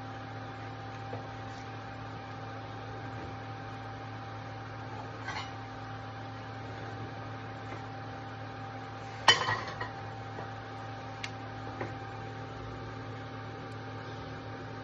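A steady electrical hum in the kitchen, with a few light clinks of metal cookware. The sharpest clink comes about nine seconds in, and fainter ones follow a couple of seconds later.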